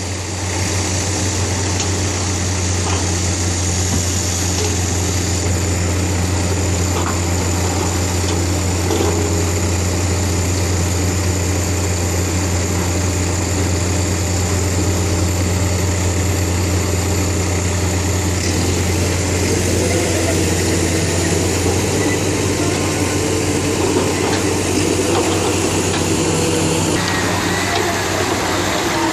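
Diesel engines of Komatsu hydraulic excavators running at a steady speed: a constant low drone, its note shifting slightly a few times in the second half.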